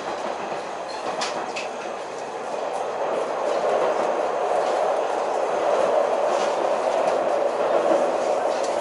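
Running noise of the Umisachi Yamasachi sightseeing diesel railcar heard from inside the carriage: a steady rumble of wheels on rail with a few sharp clicks early on, growing louder from about three seconds in.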